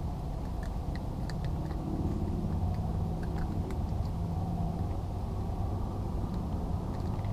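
A steady low rumble, with a faint engine-like hum coming up in the middle, and scattered faint clicks.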